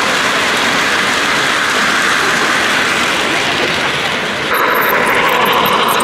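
Model trains running past on the layout track: a steady whir and rumble of motors and rolling wheels. The sound changes abruptly about four and a half seconds in.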